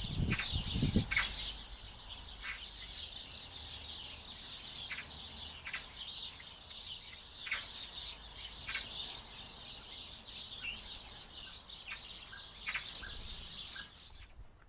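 Common starlings chattering continuously, a dense mix of clicks and rattles, with a few falling high whistles near the end. A few low thumps come in the first second.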